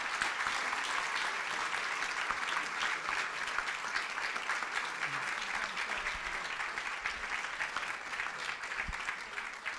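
A large audience applauding, many hands clapping together at a steady level.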